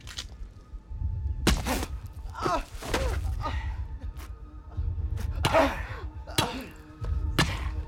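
Film sound design of a violent beating: several heavy blows land, some followed by pained cries or groans, over a low pulsing score with held tones.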